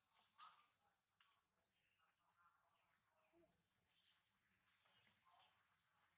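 Faint steady chirring of insects, a high pulsing buzz, over near silence, with one brief sharp sound about half a second in.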